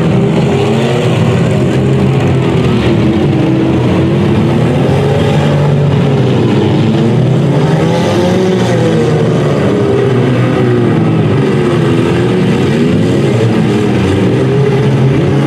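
Engines of several compact demolition derby cars running at once, revving up and down in overlapping waves.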